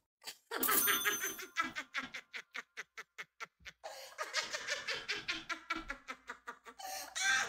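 A woman laughing hard, in a fast run of short laughs at about four a second.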